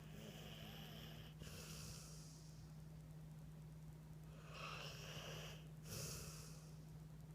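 Faint snoring: two slow breath cycles about four seconds apart, each a hissing breath in two parts with a short break between, over a steady low hum.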